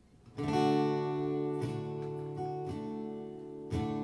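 Acoustic guitar strumming chords that ring on, starting about half a second in with a new strum roughly once a second.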